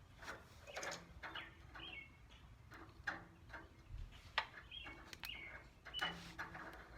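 Small birds chirping in short high calls, over scattered light clicks and scrapes from stripping wire insulation with a knife by hand.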